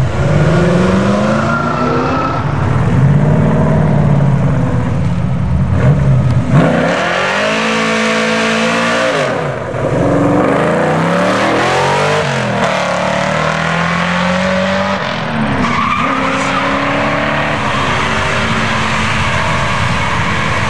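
Several muscle cars do burnouts in turn. Their engines rev hard, rising and falling in pitch again and again, over the screech of spinning rear tires, and the sound changes abruptly a couple of times as it passes from one car to the next.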